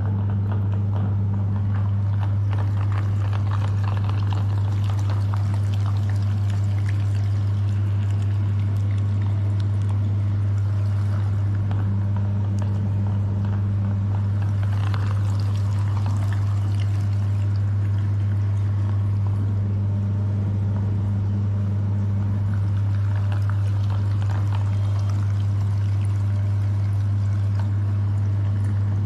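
Electric meat grinder running with a steady, unbroken motor hum as it grinds ice cream.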